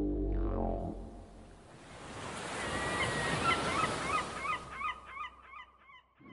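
Surf washing in, swelling then fading, with birds calling in quick repeated cries over it; the calls carry on after the surf dies away near the end. In the first second a pitched tone slides down and ends.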